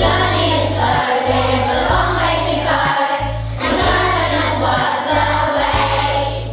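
A group of children singing a song together over musical accompaniment with a steady bass line.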